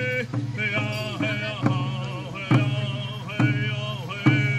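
Powwow drum group singing: men's high, held voices in a chant over a steady beat on a large drum.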